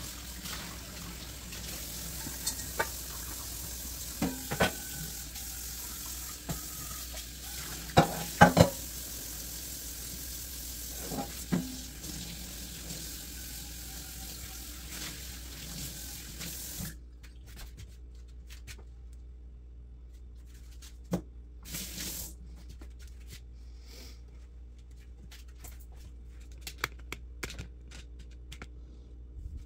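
Kitchen faucet running into a stainless steel sink while a metal pot and dishes are rinsed, with sharp clinks and knocks of metal and dishware, a cluster of the loudest about eight seconds in. The water shuts off abruptly a little over halfway through, leaving a few soft knocks.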